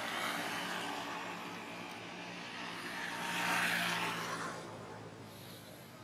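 A motor vehicle passing on the road, growing louder to a peak about three and a half seconds in, then fading away.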